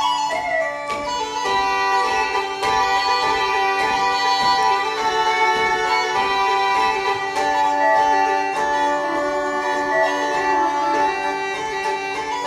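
Uilleann pipes played solo: a fast, heavily ornamented tune on the chanter over a steady drone.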